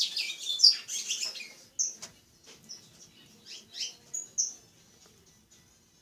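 Caged songbird chirping and singing in short high notes: a quick run of notes in the first second and a half, then scattered single chirps.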